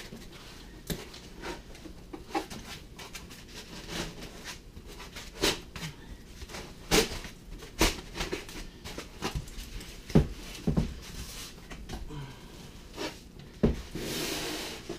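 Handling noise from foam packing blocks being worked off a boxed 3D printer: irregular knocks, taps and rubbing, with a longer scraping rustle near the end.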